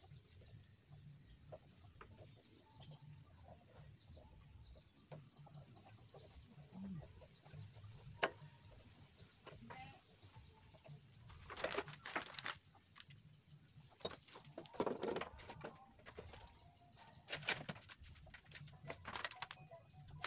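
Quiet hand-work noises on a small water-pump engine: scattered light clicks, and from about halfway several short, louder rustling scrapes as parts and tools are handled.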